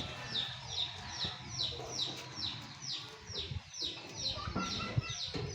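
A bird calling in a rapid series of short, high, falling chirps, about two or three a second and evenly paced.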